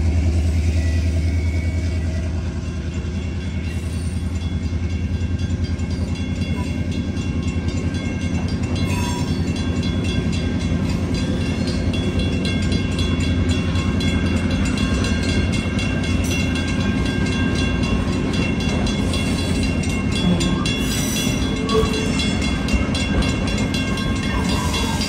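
Passenger coaches of a Coaster commuter train rolling steadily past a grade crossing, their wheels clicking over the rail joints. A low diesel rumble from the departing F40PHM-2C locomotive eases off over the first few seconds, under a steady, evenly repeating ringing that fits the crossing bell.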